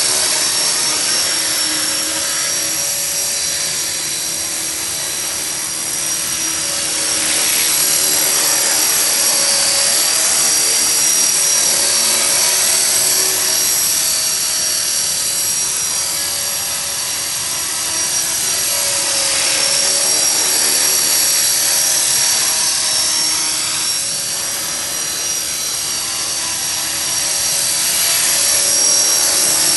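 EXI 450 electric radio-controlled helicopter in flight: a high motor and gear whine over the buzz of the spinning rotor, slowly swelling and fading as it moves nearer and farther.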